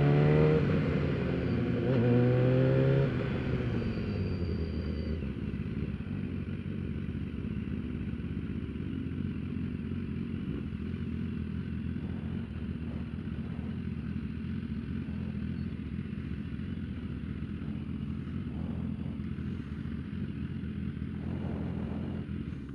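BMW S1000RR's inline-four engine revving up twice in the first three seconds, then dropping to a steady run at low revs.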